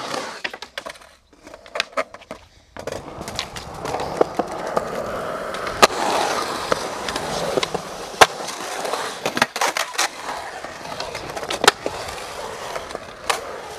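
Skateboard wheels rolling over a concrete bowl, setting in about three seconds in after a few scattered clicks. Several sharp clacks of the board striking the concrete punctuate the rolling.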